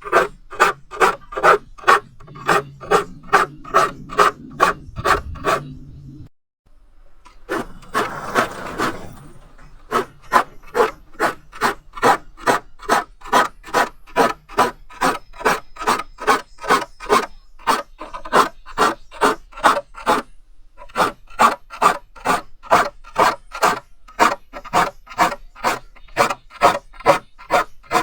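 Hand file rasping across the teeth of a crosscut handsaw, sharpening them in quick, even strokes about two a second. The strokes stop briefly about six seconds in, then resume.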